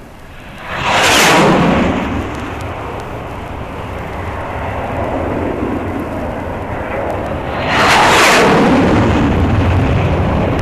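Jet fighters making two low passes about seven seconds apart. Each swells quickly to a loud rush and drops in pitch as it goes by, leaving a lower rumble.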